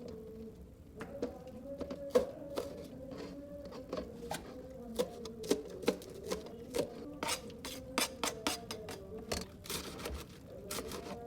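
Kitchen utensils clicking and knocking against cookware, irregularly, about one to three times a second, over a faint steady tone.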